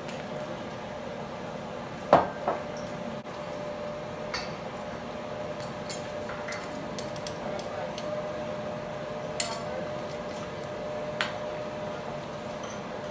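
Kitchenware being handled: a sharp knock about two seconds in and a few scattered clinks after it, over a steady background hum.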